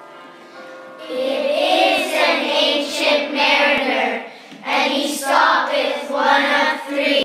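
A group of children's voices singing together in unison, starting about a second in, in phrases broken by short pauses.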